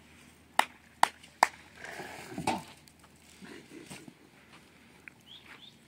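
Three sharp knocks in quick succession, about half a second apart, followed by a brief rough scraping or crunching.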